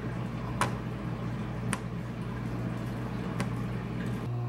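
Three short clicks as fresh strawberries are handled and set down on a plastic cutting board, the first the loudest, over a steady low hum.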